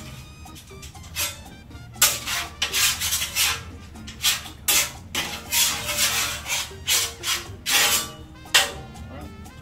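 A utensil scraping and rubbing across the steel top of a Blackstone flat-top griddle in a string of short, irregular rasping strokes, with faint music underneath.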